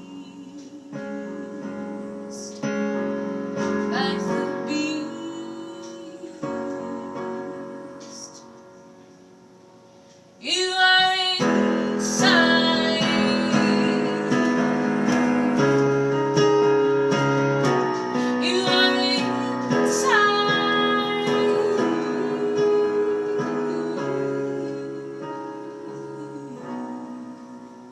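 Jazz song with piano and a woman singing. It starts with quieter piano chords, then about ten seconds in it turns suddenly louder with a voice sliding up in pitch, and it fades down near the end.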